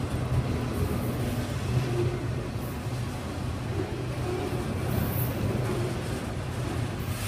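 Union Pacific freight train of enclosed autorack cars rolling past, a steady low rumble of steel wheels on the rails.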